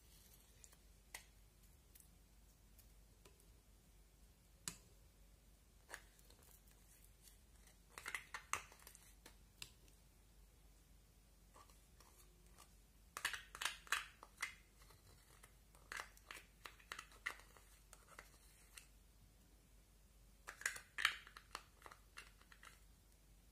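Slime being squeezed and stretched by hand, giving quiet bursts of crackling clicks and pops. A few single clicks come first, then four clusters of rapid crackling.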